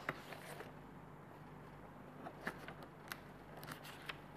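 Faint room tone: a low steady hum with a few small, sharp clicks scattered through it.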